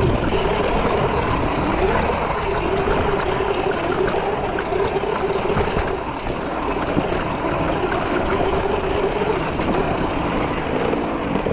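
Electric dirt bike ridden fast along a dirt trail: a steady electric motor whine that rises and dips with speed, over a constant rush of wind and tyre noise.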